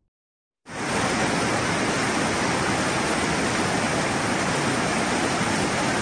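Floodwater of the Kaveri River rushing over the rocky cascades of Hogenakkal Falls: a steady, even rush of falling water that starts suddenly under a second in.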